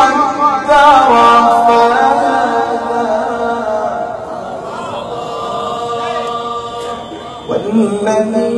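A man reciting the Qur'an in the melodic tilawah style, singing long ornamented phrases and holding a note that slowly fades; after a brief pause near the end he starts a new phrase.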